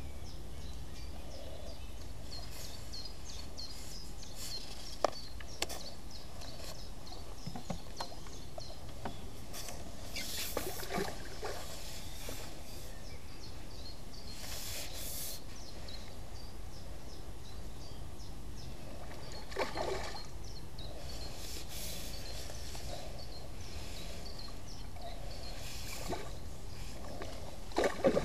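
Outdoor pool-side ambience: a steady low rumble with faint small-bird chirping and a few brief clicks and rustles. Near the end a hooked fish splashes at the water's surface, the loudest sound here.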